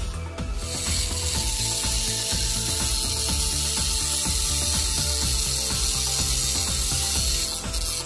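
775 DC motor running a small cutting disc, cutting a thin rod held against its edge. A harsh grinding hiss starts about half a second in and stops just before the end, over the motor's steady whine.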